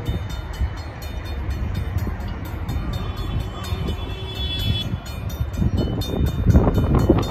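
Railroad grade-crossing bell ringing in rapid, even strokes as the crossing activates. A low rumble underneath grows louder from about six seconds in as the freight train approaches.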